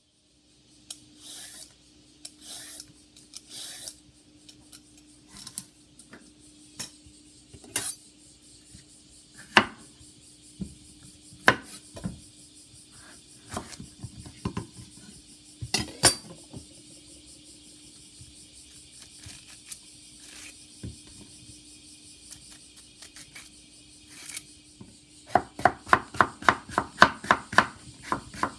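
A kitchen knife cutting cucumber on a wooden cutting board. Through most of the stretch there are scattered single knocks and short scrapes. Near the end the blade chops in a fast, even run of about four or five strokes a second.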